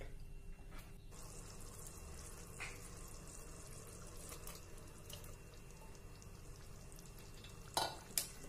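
Curry gravy simmering in a pan, a faint steady sizzle with scattered small ticks, and two sharp clicks near the end.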